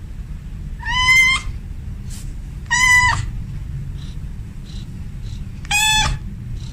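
A cat meowing three times, short high-pitched calls about two seconds apart, over a steady low rumble.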